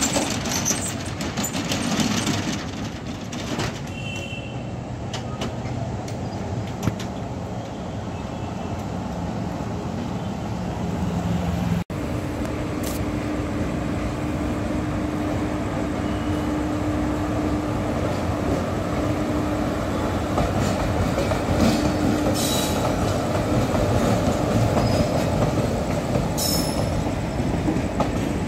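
Indian Railways passenger train running past, its wheels rumbling and clattering on the rails, growing louder as the coaches come close near the end. There are a few short high squeaks about three-quarters of the way through.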